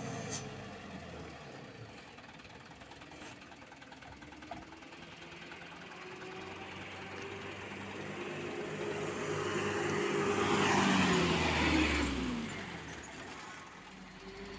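Mitsubishi Fuso Canter dump truck's diesel engine running as the truck drives slowly past on a gravel road: it grows steadily louder, peaks with tyre noise about two-thirds of the way in, then its pitch falls away as it passes and fades.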